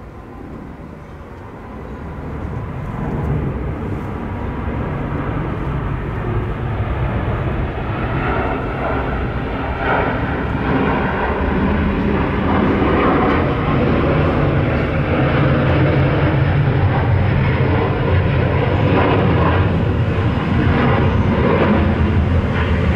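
Air Mauritius twin-engine Airbus widebody jetliner climbing out on departure, its jet engine noise growing louder from about two seconds in and then holding loud as it passes close overhead. The sound is a deep rumble with a rough crackle.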